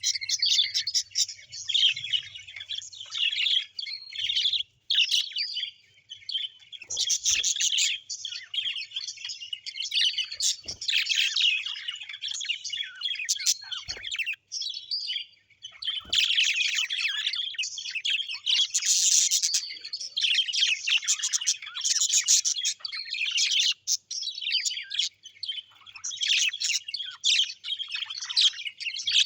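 Small birds chirping and twittering in a dense, rapid chatter, with a few short pauses.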